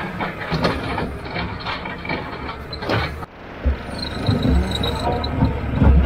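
Skid steer loader running and rattling as it moves, with its metal bucket and frame clanking. About three seconds in the sound cuts off, and a low, steady engine drone heard from inside the cab takes over and grows louder.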